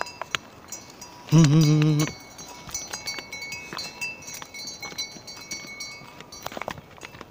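Small livestock neck bells tinkling irregularly as the animals walk. About a second in, a loud call with a wavering pitch lasts under a second.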